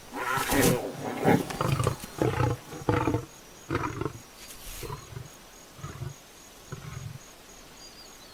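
Lion roaring: a series of roars that start loudest and fade into shorter, weaker calls about once a second.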